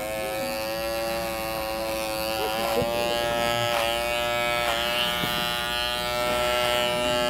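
Small electric pet clippers running with a steady buzz while trimming the hair on top of a dog's foot. The pitch dips briefly a few times as the blades cut into the hair.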